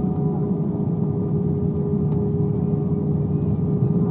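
Cabin noise of an Airbus A320 rolling out on the runway just after touchdown, ground spoilers up: a steady low rumble from the engines and the wheels on the runway, with a constant hum over it.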